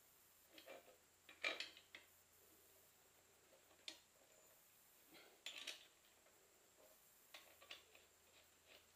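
Faint, scattered metallic clinks and taps of motorcycle axle hardware and hand tools being handled. There are two sharper clinks about a second and a half in, one near four seconds, a short cluster a little past five seconds, and lighter ticks near the end.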